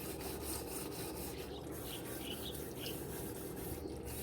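Hand scrubbing of a barbecue grill, a steady rubbing and scraping as the last of the grease is scoured off.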